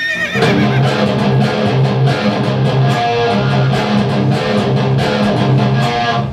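Electric guitar in drop C tuning playing a rhythmic riff in a seven-beat pattern, built on the open low string plus a note a half step above. It starts sharply and stops near the end.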